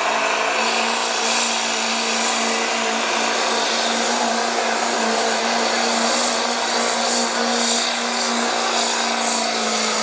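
A Chevrolet Silverado pickup's Duramax diesel V8 held at full throttle under heavy load while pulling a truck-pull sled, a loud, steady, unbroken drone.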